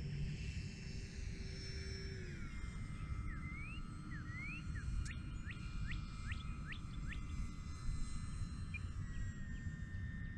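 Electric brushless motor and propeller of an E-flite Air Tractor RC plane in flight, a steady whine that drops in pitch about two seconds in as the plane passes. Wind rumbles on the microphone throughout and is the loudest sound.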